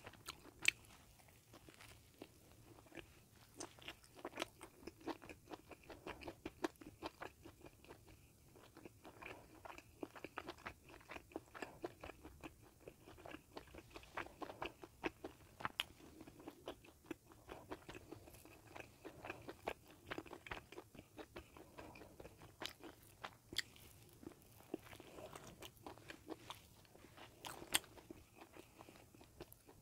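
Close-miked biting and chewing of a bagel sandwich: irregular soft crunches and mouth clicks, thinning out near the end.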